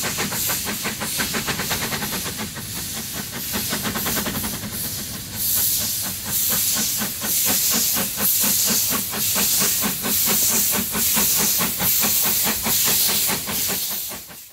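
South African Railways Class NG15 2-8-2 narrow-gauge steam locomotive working under load with a train of coaches, its exhaust beating out a quick, even rhythm of chuffs over hissing steam.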